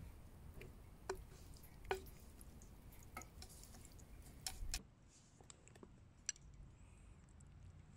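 Chopsticks clicking and scraping against a frying pan and a ceramic bowl as stir-fried cabbage, pork and egg is pushed from the pan into the bowl. A string of light, faint clicks with soft squishes of food, most of them in the first five seconds.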